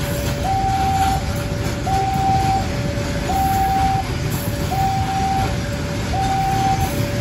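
Railway level-crossing alarm sounding a repeating two-tone high-low signal, about one cycle every second and a half, over the low rumble of a container freight train rolling past.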